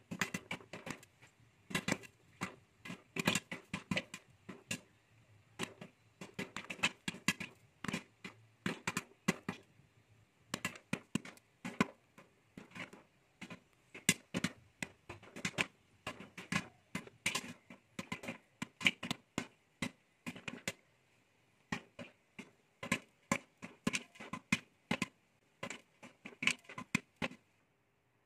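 Popcorn kernels popping in a lidded pot: an irregular run of sharp pops, several a second, going on throughout.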